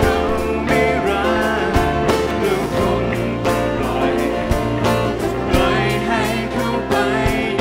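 Live band playing a song: a male singer with acoustic guitar, a Korg Krome keyboard and drums, with a steady beat.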